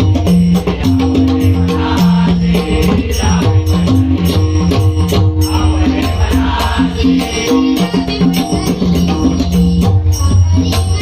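Instrumental passage of a Marathi Vitthal abhang: a melody moving in short held notes over a low drum and a steady, evenly spaced percussion beat.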